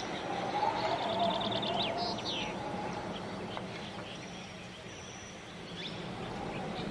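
Birds chirping: a quick trill of high chirps about a second in, then a couple of short falling calls, over a steady hush of background noise.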